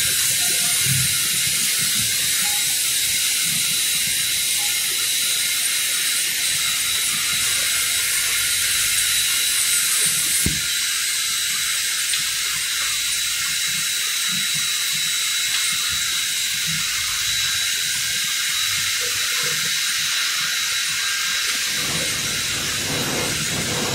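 A baked-snack extrusion line running: a steady, loud hiss with a few thin steady whining tones in it.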